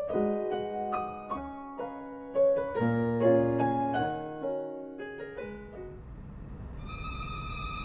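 Instrumental intro music: a short melody of struck, ringing notes for about six seconds. It then gives way to a steady hiss with a held high tone.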